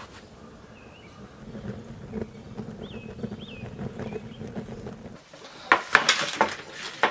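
Wood fire burning in a smoker's firebox with a steady low rush and small crackles, while a bird chirps a few times. Then, loudest, a plastic-wrapped pork roast is handled on a tray on a wooden table: plastic crinkling and a few sharp knocks.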